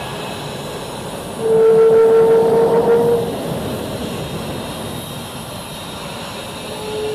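An F-22 Raptor's twin F119 turbofan jet engines running at taxi power as the jet rolls past close by: a steady jet rush with a high steady whine. About a second and a half in, the sound swells louder for about two seconds, the whine at its strongest, then settles back.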